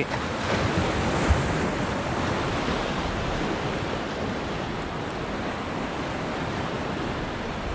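Ocean surf washing against the jetty's rock boulders in a steady wash, with a brief low knock about a second in.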